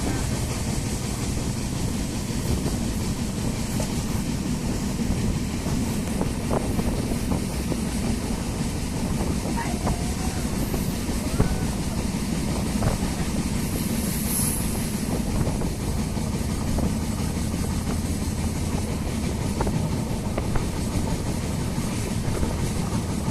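Passenger train running: a steady rumble of the coach and its wheels on the track, heard from inside the carriage.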